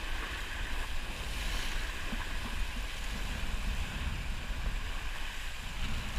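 Sailing yacht under way: a steady hiss of water rushing along the hull, with gusty wind rumbling on the microphone.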